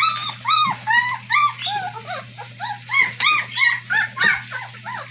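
Young German Shepherd puppies whining and squealing: many short, high cries that rise and fall in pitch, several a second and overlapping. These are hungry puppies crying as they seek to nurse from their mother.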